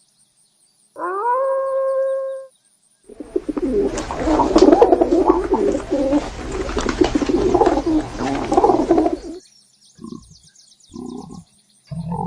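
A run of animal calls. First comes a single call that rises in pitch and then holds, about a second in. Next are several seconds of dense, continuous bird cooing and warbling over a low rumble. Near the end come a few short, low grunting calls.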